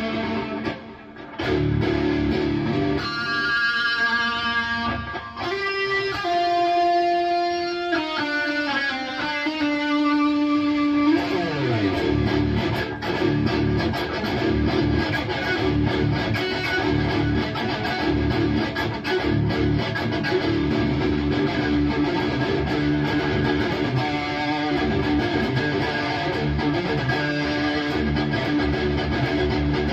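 Distorted electric guitar played through a Bogner Uberschall preamp module. For about ten seconds it holds sustained notes, then a note slides down in pitch, and from there on it plays steady low palm-muted chugging.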